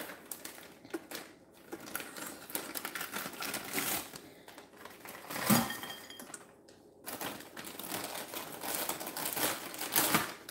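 A fork worked into a squeezed lemon half, clicking and scraping against a stainless steel mixing bowl: a run of small, irregular clicks and scrapes, with a louder knock about five and a half seconds in.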